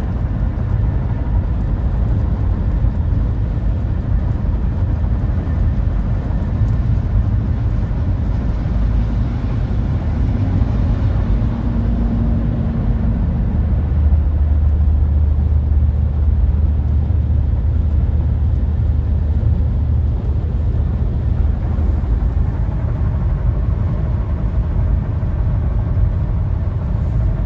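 Steady low road rumble inside the cabin of a 2023 Nissan Rogue SL while it is being driven, swelling for a few seconds midway.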